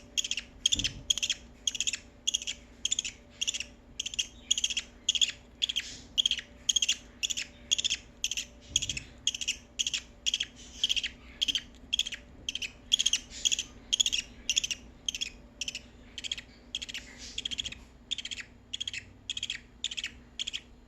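Baby budgerigar chicks' food-begging calls: short, raspy cheeps repeated steadily at about two to three a second.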